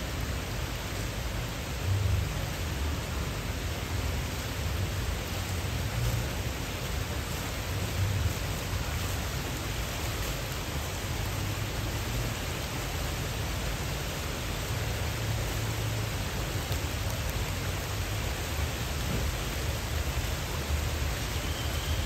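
Fountain water falling steadily down a tiled stepped cascade, with an uneven low rumble underneath.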